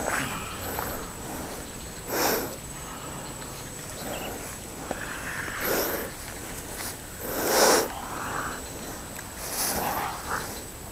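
A person's sharp, breathy exhalations, about five short bursts roughly two seconds apart, the loudest about three-quarters of the way through.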